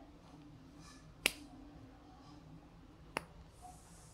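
Plastic temple arm of a pair of Everest safety glasses being slid through its length-adjustment notches, giving two sharp clicks about two seconds apart, one for each notch it passes.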